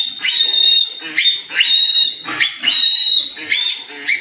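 A young piglet squealing, high and shrill, in rapid repeated squeals about two or three a second, as it is held for its iron and multivitamin injection.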